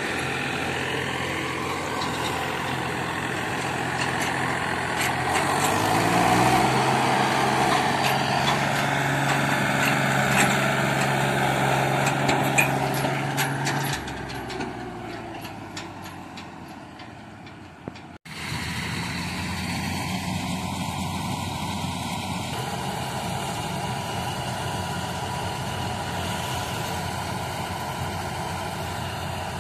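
Diesel tractor engine running under load, its pitch rising about five seconds in and then holding steady before fading away. After an abrupt cut, a combine harvester gives a steady, even drone.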